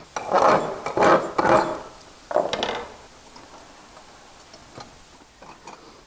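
Chipping hammer knocking the slag coating off a freshly made 7018 stick-weld fillet on steel plate: several sharp blows in the first three seconds, then a few lighter taps near the end.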